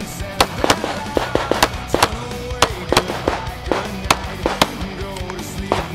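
A string of pistol shots at irregular spacing, fired through a USPSA practical shooting stage with an STI Edge pistol, with background music throughout.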